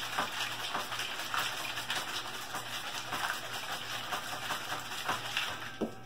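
Water sloshing inside a plastic soda bottle being shaken hard while hooked to a CO2 carbonator line, so that the water absorbs the gas. A rapid, crackly rush that stops near the end.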